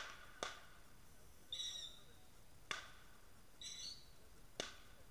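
Faint sharp pops from the burning Christmas tree and its fireworks, four of them, the loudest right at the start, with short high chirps in between.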